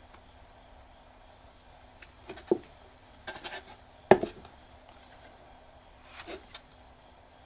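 Work handling sounds: several soft knocks and scrapes as the lacquered box is turned on its wooden block, the loudest knock about four seconds in. Near the end a spatula scrapes sabiji lacquer putty on the mixing board.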